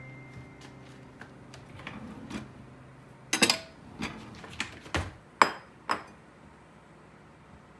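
Kitchen things being set down and handled on a wooden cutting board: a quiet stretch, then about six sharp knocks and clinks in quick succession a little past the middle.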